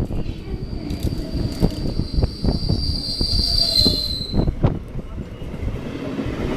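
EMU local train's wheels squealing with a high, steady whine for about four seconds before it fades, over the rumble of the train and repeated clacks of wheels over rail joints.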